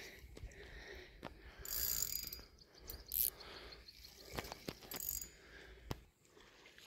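Spinning reel whirring and clicking in short, uneven spells as a hooked carp is reeled in, with several sharp clicks along the way.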